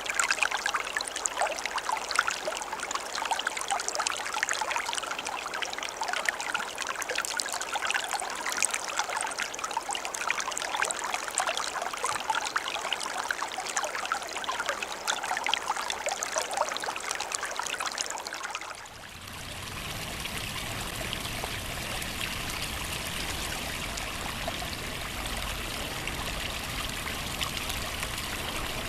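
A stream of running water, trickling and splashing busily. About two-thirds of the way through it changes to a smoother, steadier rush of water with more low rumble.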